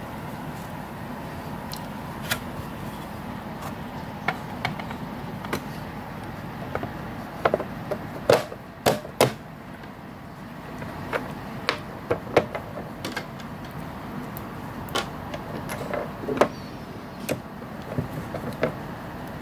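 Irregular clicks and knocks of hard plastic parts and a screwdriver being handled as the case of a 1979 Tomy Hit and Missile handheld game is closed up and its red knob fitted. The loudest knocks come in a cluster about halfway through, over a steady low background noise.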